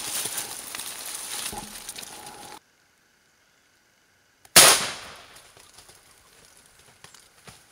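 A single loud shotgun shot about four and a half seconds in, fading quickly. Before it, rustling and brushing through undergrowth cuts off abruptly into dead silence.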